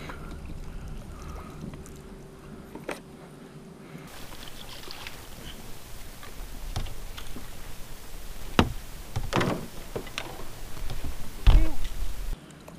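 A double-bladed paddle driving a small boat through shallow water: strokes splashing, with a few sharp knocks and splashes, the loudest near the end, over a steady hiss of water and wind.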